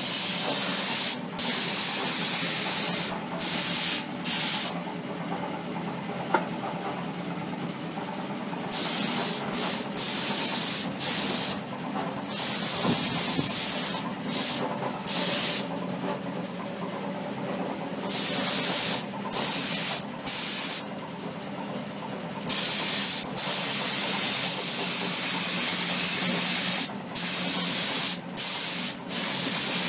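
Compressed-air paint spray gun (gravity-feed cup type) hissing in bursts as the trigger is pulled and released, some bursts of several seconds broken by brief gaps and a longer pause of about four seconds early on. A steady low motor hum runs underneath.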